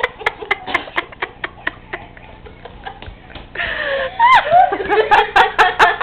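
Scattered sharp clicks and taps, then about halfway through a voice squealing with rising and falling pitch, which breaks into quick bursts of laughter near the end.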